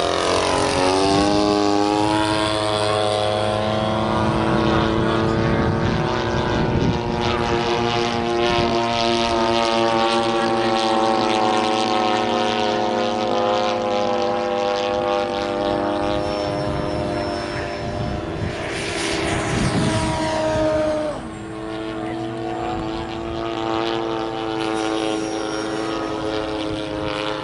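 Radio-controlled model airplane's propeller engine droning in flight. Its pitch drops sharply as it passes close in the first couple of seconds, then holds steady, and it falls again with another pass about 20 seconds in.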